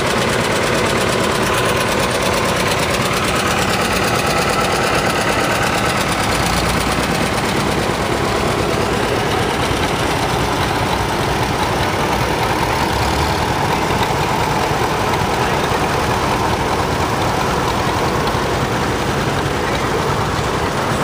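Tractor engines running at a steady, loud level as the tractors go by in a parade.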